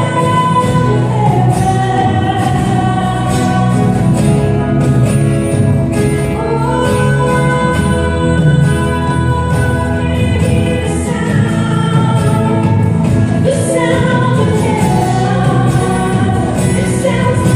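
Worship music: a choir singing long held notes over instrumental backing.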